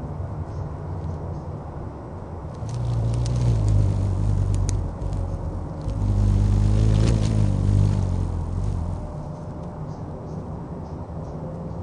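The wings of a hummingbird chick whirring as it flaps and lifts off above the nest: the chick is fledging. It is a low, close hum in two bouts of about two to three seconds each, with a few faint high ticks during the first.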